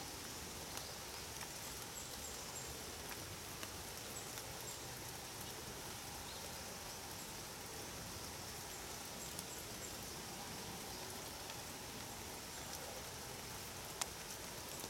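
Light rain pattering steadily on an umbrella, with a few louder single drops now and then.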